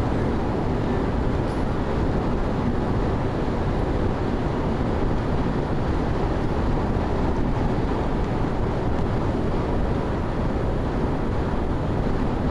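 Steady road and engine noise heard inside a car's cabin while it drives at highway speed.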